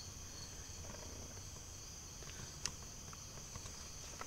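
Faint background with a steady high-pitched tone, and a single light click about two and a half seconds in.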